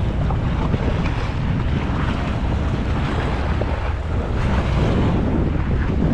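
Wind buffeting the microphone over sea water washing against a boat's hull, with a steady low boat-engine hum beneath.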